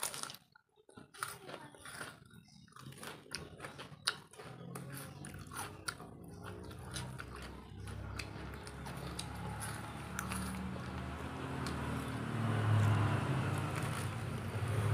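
Close-up crunching bites and chewing of raw cucumber and crisp crackers, sharp and crisp for the first few seconds. From about four seconds in, a low steady rumble builds up underneath and grows louder toward the end.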